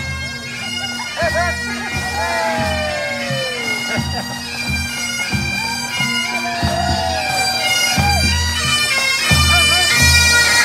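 Highland bagpipes of a marching pipe band playing a tune: the steady drones sound under the chanter melody, with a regular low beat underneath. The sound grows louder as the band comes nearer.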